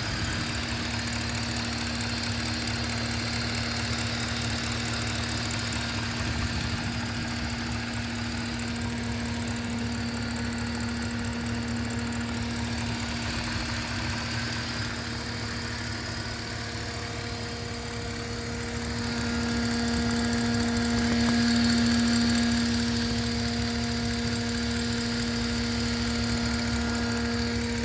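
BMW 545i's N62 4.4-litre V8 running at idle with a steady whine over a fine ticking, the strange engine-bay noise in question. The whine holds one pitch and grows louder about twenty seconds in, then eases back.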